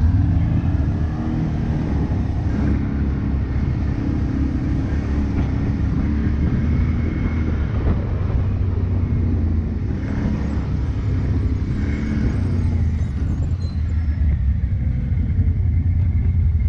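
Quad bike (ATV) engine running under load over sand, with a deep rumble and revs that rise and fall repeatedly.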